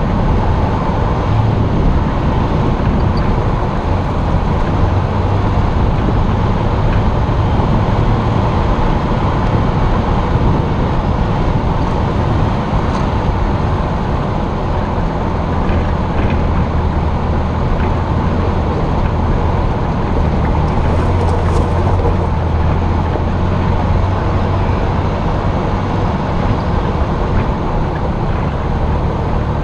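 Jeep driving at steady speed, heard from its hood: a low, steady engine drone with continuous tyre and wind noise.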